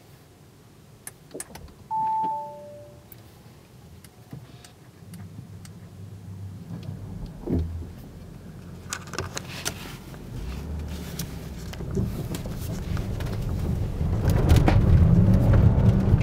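Audi Q7 55 TFSI e plug-in hybrid pulling away and accelerating: a short two-note dashboard chime about two seconds in, then low engine and road rumble that builds steadily and gets loud near the end.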